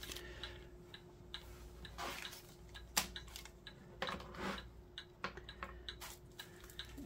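Light clicks, taps and rustles of 3D-printed plastic diamond painting trays and their packaging being handled, with a sharper click about three seconds in.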